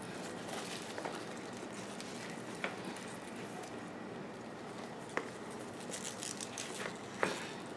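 Hands working in potting soil and handling stiff boat lily (Tradescantia spathacea) leaves: soft rustling with a few light clicks and taps, a small cluster of them near the end.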